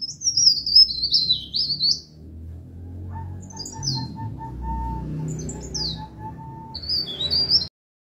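Burung pare-pare, a small songbird, singing quick, high twittering phrases. One phrase runs through the first two seconds, short notes follow after a pause, and another phrase comes near the end before the sound cuts off. A lower note repeats about three times a second through the middle, over a low rumbling background.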